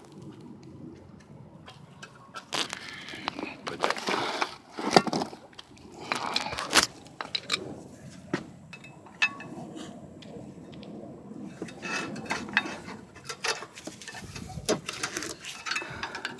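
Hand tools and metal brake parts clicking, knocking and clattering irregularly during rear brake work, with a few louder clatters.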